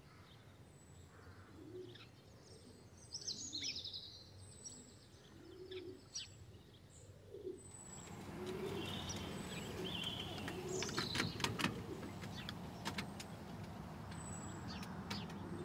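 Outdoor ambience of birds chirping and calling, many short high calls over lower repeated calls. About halfway through, the background noise grows louder, with a few sharp ticks.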